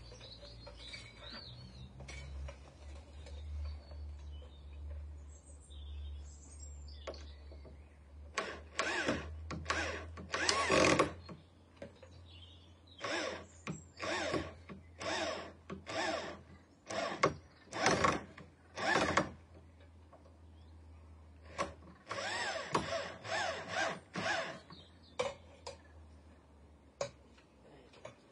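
Power drill driving screws into the timber wall frame, in short whirring bursts that come in three spells: a few bursts about a third of the way in, a longer run through the middle, and a last spell later on.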